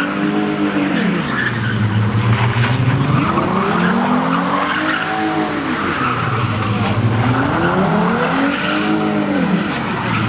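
Car engine revving hard, its pitch swelling up and falling back three times, under a continuous screech of spinning tyres skidding on pavement.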